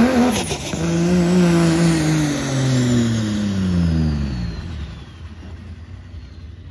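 Diesel engine of a Dodge Ram dually pickup at full throttle pulling a weight-transfer sled; about half a second in the engine note breaks and drops, then the revs wind steadily down over the next four seconds, with a faint high whine falling along with them, as the pull ends and the truck slows to a stop.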